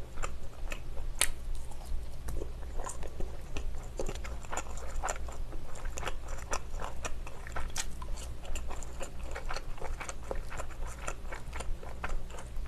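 Close-miked chewing and biting of a mouthful of rice and rolled omelette: irregular wet mouth clicks and small crunches, which she puts down to chili seeds in the omelette.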